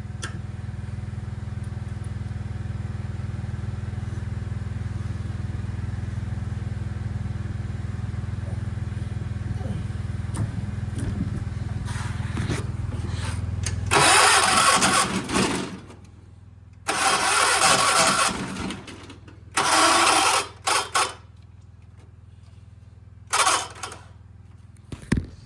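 A steady low hum for the first half. Then five short, loud bursts of the 1976 John Deere 300's electric starter spinning and grinding without turning the engine over, which the owner puts down to a flywheel problem.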